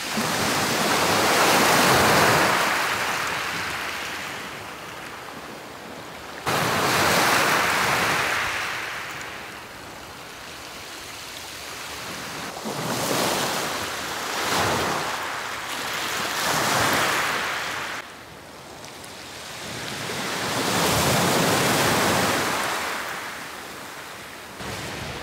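Sea waves washing onto a beach, in a series of surges that swell and fade every few seconds.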